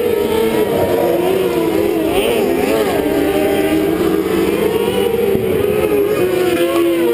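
Several winged outlaw kart engines running hard together on track, their overlapping pitches rising and falling as the karts lap.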